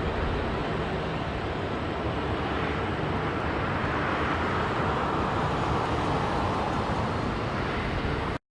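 Jet airliner engine noise outdoors: a steady rushing sound that swells slightly midway, then cuts off suddenly near the end.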